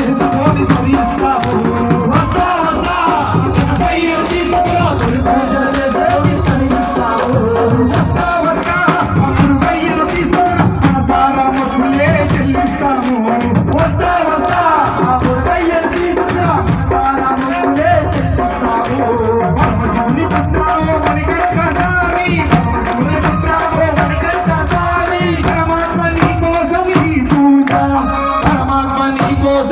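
Live Ayyappa devotional bhajan: a man sings into an amplified microphone, backed by a group of men, over a steady fast beat of hand clapping and shaken hand percussion.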